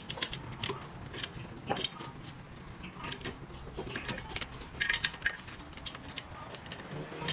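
Irregular metallic clicks and clinks of a socket wrench on an extension bar being worked on a motorcycle engine's cylinder bolts, some coming in quick little runs.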